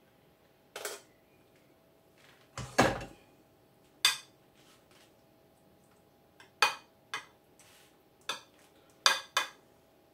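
A spoon and a steel mixing bowl knocking and clinking against a glass baking dish and the counter as béchamel is poured and spread: scattered sharp clinks, with one heavier knock about three seconds in.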